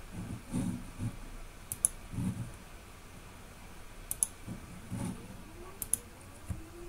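Automated PCB-making machine switching from drilling to washing: sharp clicks in three pairs and dull low mechanical knocks. Near the end a motor spins up, its hum rising in pitch and then holding steady.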